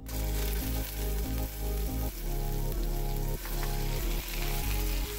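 Marinated ground pork sizzling in hot oil in a steel frying pan, the sizzle starting the moment the meat drops in, with background music playing.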